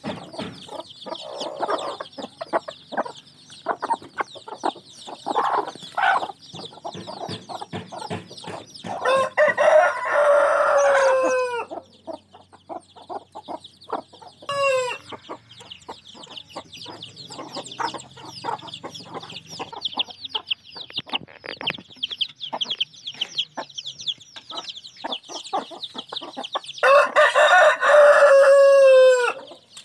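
Rooster crowing twice, about ten seconds in and again near the end, each crow about two and a half seconds long and ending in a long falling note. Under it, a brood of chicks peeps constantly and a hen clucks in the first few seconds.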